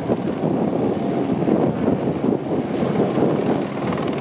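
Squirrel helicopter hovering with a telegraph pole slung beneath it on a long line: steady rotor and turbine noise, with wind buffeting the microphone.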